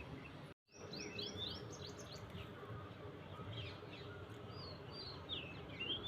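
Small birds chirping over a steady outdoor background hiss. There is a quick run of short chirps about a second in and more chirps from about three and a half seconds on. The sound drops out completely for a moment about half a second in.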